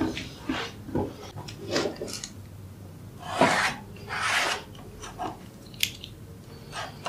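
Pencil scratching along the edge of a wooden batten onto a wooden board as a marking line is drawn, in a few short strokes, the longest about halfway through, with light knocks and rubbing as the batten is set in place.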